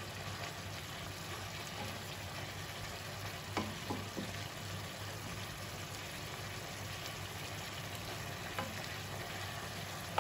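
Beef and broccoli sizzling in a nonstick wok while a wooden spoon stirs and scrapes through it, over a low steady hum. A few light knocks of the spoon against the pan come around four seconds in and again near eight and a half.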